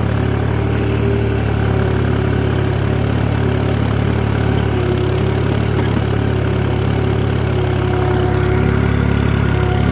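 Tractor engine running at a steady pitch under load, pulling a reversible plough through dry soil.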